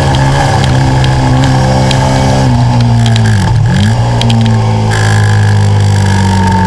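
Stock Aprilia Tuono V4 motorcycle's V4 engine running hard on track, heard from onboard. The engine note holds steady, then drops sharply and picks back up about three and a half seconds in.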